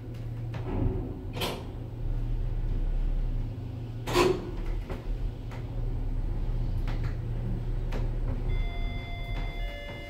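Passenger lift travelling up its shaft, its drive humming steadily, with two sharp clatters about a second and a half and four seconds in. Near the end the hum falls away as the car slows and stops at the landing, and a few steady high tones begin.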